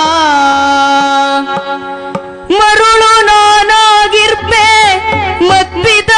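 A female Yakshagana singer sings in Kannada. She holds a long note that fades about a second and a half in. About two and a half seconds in, she launches loudly into a wavering, ornamented melodic line, with maddale drum accompaniment.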